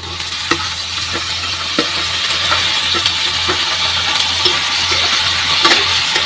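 Thin-sliced potatoes sizzling in hot oil in a steel kadhai, the sizzle swelling over the first couple of seconds as they go in, with scattered clinks of a steel ladle against the metal.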